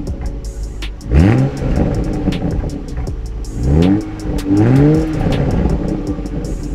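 Toyota GR Supra (A90) on its stock exhaust, valves open in Sport mode, blipped from idle: one rev rises about a second in, then two quick revs one after the other around four and five seconds in.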